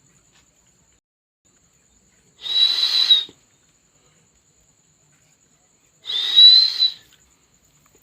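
Pet parrot giving two shrill, whistling calls, each about a second long with a slight rise in pitch, a few seconds apart.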